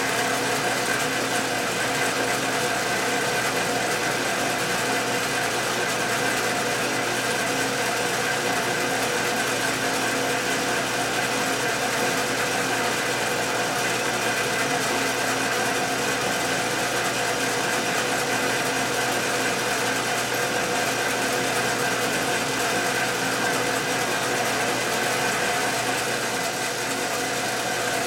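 Metal lathe running steadily on power feed, turning a round piece of hard steel stock: an even mechanical hum with several steady tones from the motor and gearing, unchanging throughout.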